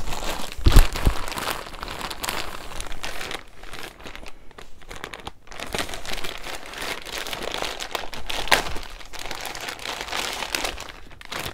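Plastic packaging crinkling and rustling as items are handled and unwrapped, with a thump about a second in.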